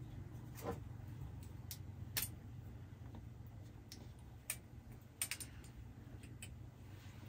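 Light clicks and taps, about a dozen scattered irregularly, as small perfume refill vials are handled and knocked together, over a faint steady low hum.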